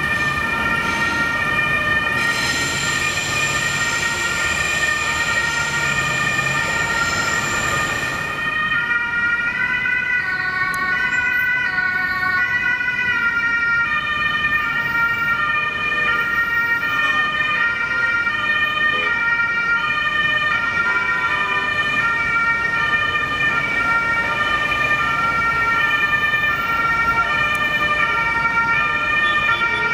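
German ambulance two-tone siren (Martinshorn) sounding continuously, stepping back and forth between two pitches. For the first several seconds the rush of a vehicle passing close sounds over it, fading about eight seconds in.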